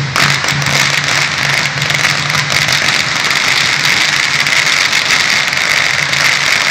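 A string of firecrackers going off, a loud, dense, continuous crackle with no gaps, alongside a Chinese dragon dance.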